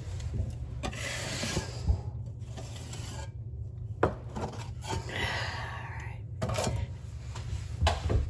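A few separate rasping strokes of a hand tool rubbing over a patched spot on the wall, as in sanding or scraping spackle, with a few short sharp knocks in between.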